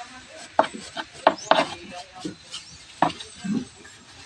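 A paintbrush working over the boards inside a wooden box: bristles rubbing on the wood, with several sharp wooden knocks, four of them in the first three seconds.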